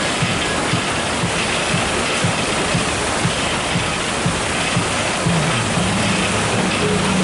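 Background music with a steady beat, about two low thumps a second, over a steady rushing hiss; a bass line comes in about five seconds in.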